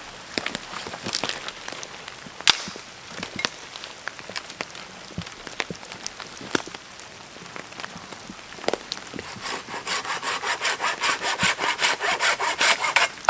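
Hand saw cutting wood. Scattered clicks and snaps at first, then about ten seconds in, quick even strokes at about four a second, growing louder until they stop near the end.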